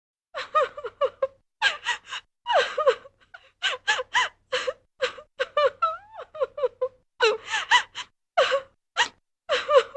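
Exaggerated comedic crying: high-pitched sobs in short gasping bursts, each falling in pitch, coming in clusters with breaths between.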